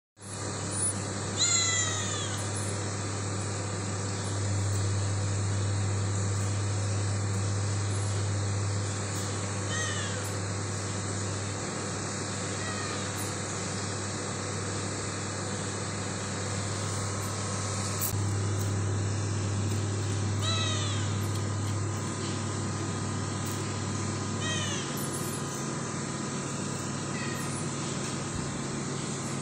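A young domestic cat meowing about six times, short calls spaced several seconds apart, each falling in pitch. Under them runs a steady low hum.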